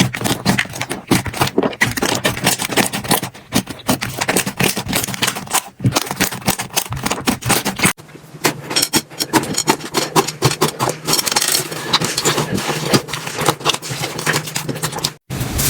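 Hands squeezing and poking slime, a dense run of crackling clicks and small pops. The sound changes to a different texture about eight seconds in.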